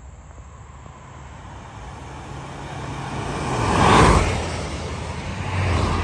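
A road vehicle passing close by: a low rumble with road noise that swells to a peak about four seconds in and fades, followed by a second, smaller swell near the end as another vehicle goes by.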